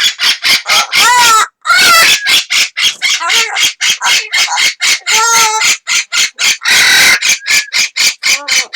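Amazon parrot calling loudly in a rapid run of short squawks, about four a second, broken by a few longer calls that bend in pitch.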